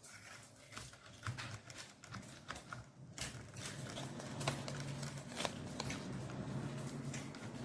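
Irregular clicks and taps, as of small plastic parts being handled, over a low steady hum that grows a little stronger after about three seconds.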